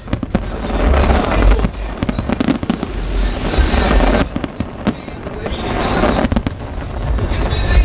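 Fireworks display in full swing: a rapid, continuous barrage of shell bursts with deep booms and sharp bangs over dense crackling.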